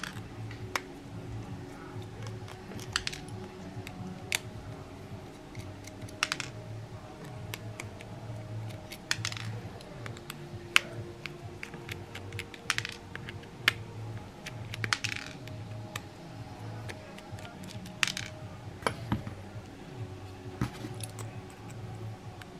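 Scattered sharp little clicks and clinks of a precision screwdriver working the screws out of a Mobicel phone's plastic back housing, and of the tiny screws dropping into a tray, over a low pulsing hum.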